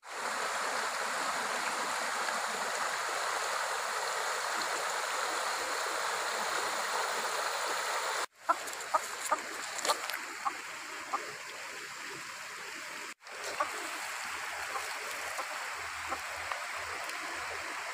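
Shallow stream rushing over rocks: a steady wash of water. It breaks off abruptly twice, and a run of short, sharp clicks sounds over it between about eight and eleven seconds in.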